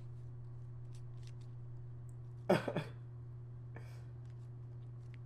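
A short, sputtering burst of laughter about two and a half seconds in, over a steady low electrical hum.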